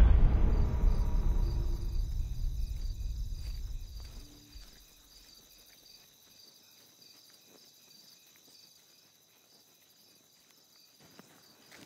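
A deep low boom from the dramatic soundtrack dies away over about four seconds. After it, crickets chirp steadily and quietly, a night-time ambience.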